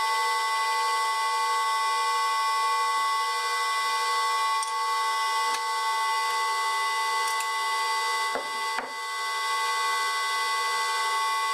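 Electric lathe motor, run from a variable-frequency drive, giving a steady whine made of several tones. In the second half a few sharp clicks and knocks come from a wrench tightening the bracket bolt that locks the motor mount, which is done to stop the motor moving around and cut vibration.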